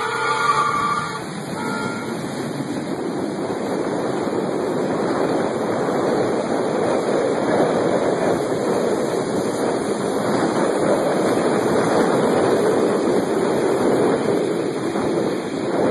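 A car horn sounds briefly at the start, then a steady rushing roar of storm wind carries on without a break.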